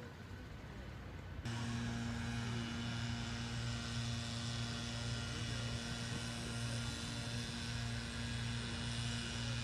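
A steady machine hum with several fixed tones, cutting in suddenly about a second and a half in and then running evenly.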